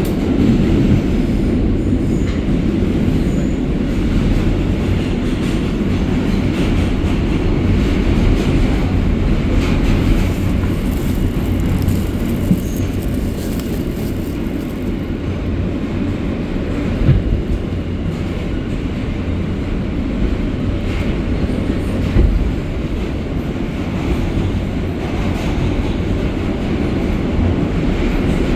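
R160A subway car running at speed, heard from on board: a steady heavy rumble of wheels on rail, with a couple of sharp knocks from the track, one about two-thirds of the way through and another a few seconds later.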